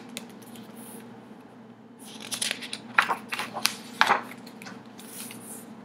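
Pages of a large hardcover picture book being turned and handled: paper rustling, with a cluster of crisp snaps and flicks about two to four seconds in.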